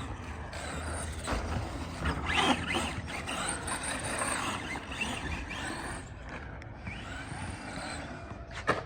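Small electric motors of radio-controlled trucks running and revving, making a rising and falling whine over a haze of tyre noise, with a sharp knock near the end.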